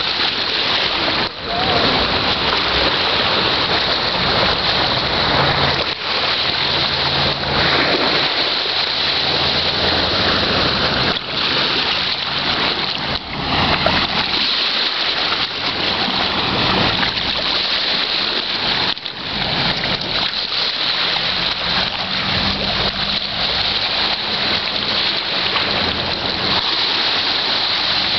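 Small waves washing in over a rocky beach and shallow water splashing among the stones: a steady rushing noise with a few brief dips. A faint low hum comes and goes underneath.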